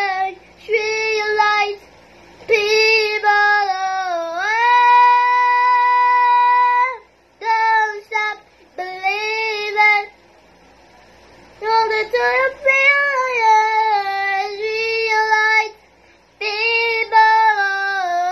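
A young boy singing unaccompanied in a high voice, in phrases broken by short pauses, with a long held note about a third of the way in.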